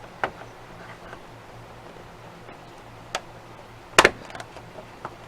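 Plastic clicks as a replacement Hi/Low fan switch is pushed into a window air conditioner's control panel. The loudest is a sharp snap about four seconds in, as the switch's retaining tabs catch.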